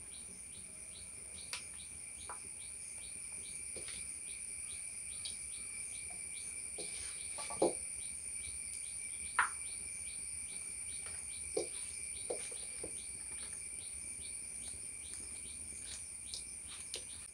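Insects chirping steadily: a continuous high-pitched whine with a fast, regular pulsing chirp beneath it. A few brief, sharper chirps or clicks stand out here and there.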